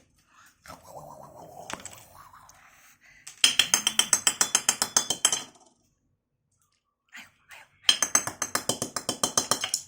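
Rapid metallic jingling or rattling in two bursts of about two seconds each, about nine strokes a second, like a small bell or rattle toy being shaken.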